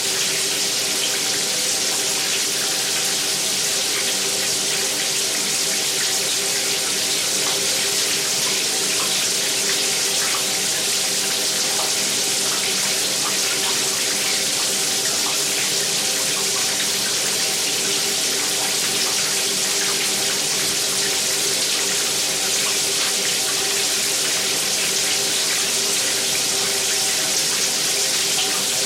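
Bathtub filling from a running tap: a steady rush of water pouring into the tub, with a few faint resonant tones held underneath.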